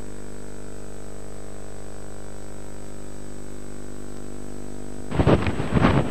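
Steady electrical hum with a thin high whine and hiss. About five seconds in, wind buffeting the microphone suddenly takes over, loud and gusting.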